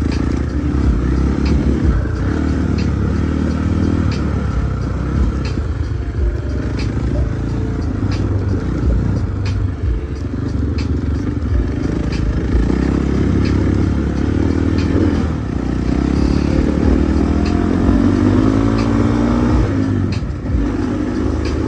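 Husqvarna 450 dirt bike engine running, its pitch rising and falling with the throttle.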